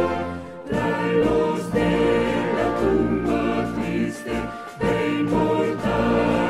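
A choir singing a Spanish hymn with instrumental accompaniment, in phrases that pause briefly about half a second in and again around four and a half seconds in.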